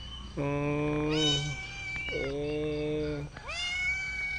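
Tethered domestic cat meowing repeatedly: about four long, drawn-out meows, some lower and some higher-pitched, the last still going at the end. The cat is tied up and can't get away, and the meows sound to its finder like a plea for help.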